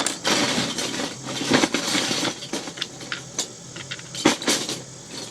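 Loose plastic Lego bricks clattering and clicking as they are rummaged through by hand: a dense rattle over the first couple of seconds, then scattered single clicks.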